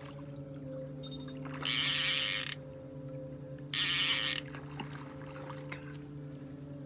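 Outboard motor running at trolling speed with a steady low hum. Twice in the middle it is covered by a short, loud hissing rush lasting under a second each.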